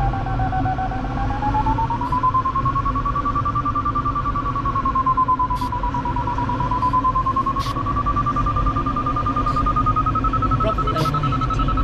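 Glider's electronic variometer giving its climb tone, a fast-pulsing beep whose pitch wavers slowly up and down and rises overall as the thermal climb peaks. Under it is the steady rush of air in the cockpit, with a few faint ticks.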